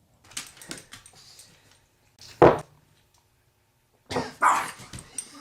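A dog barking at its owner's fart: one sharp, loud bark about two and a half seconds in and a quick run of barks near the end, with lighter scuffling sounds in the first second.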